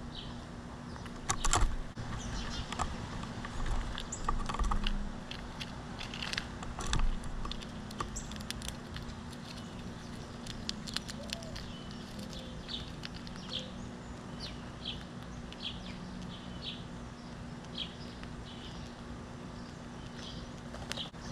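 Clicks and knocks of animals feeding on a wooden tray feeder full of seed and peanuts, sharpest in the first several seconds. From about halfway, a bird chirps repeatedly, about once a second, over a steady low hum.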